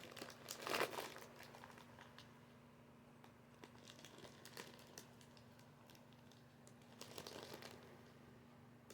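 Plastic packaging crinkling as it is handled: two short bursts, about a second in and again near the end, with scattered small clicks and rustles between.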